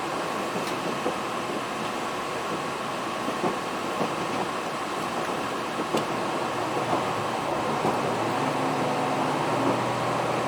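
Running noise of a KiHa 261 series diesel express train under way: a steady rumble with a few light clicks. A low steady hum comes in near the end.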